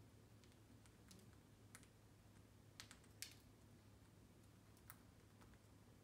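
Near silence broken by a handful of faint, sharp clicks, two close together a little before the middle: an Indian ringneck parakeet nibbling and tugging at a shoelace on its metal play stand.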